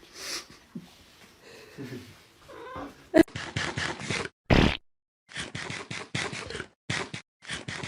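A domestic cat making a run of short, raspy sounds, about three to four a second with brief pauses, after a sharp click about three seconds in.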